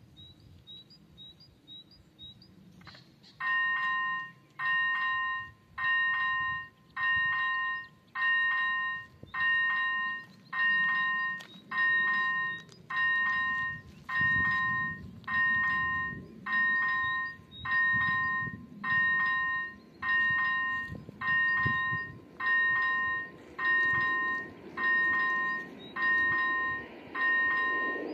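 Czech railway level-crossing warning signal switching on about three seconds in: an electronic bell sounding about once a second, each ring a chord of several high tones, warning that a train is approaching.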